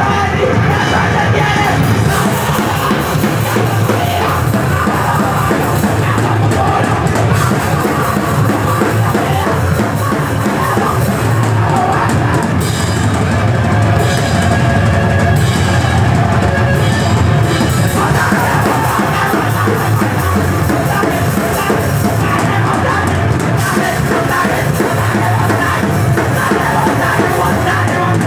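Punk band playing loud live music without a break: a drum kit with cymbals and amplified instruments.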